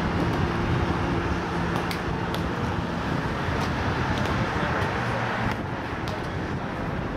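Steady road traffic noise with a vehicle engine passing, its hum fading after about three seconds, and a few short sharp slaps of hands striking a volleyball.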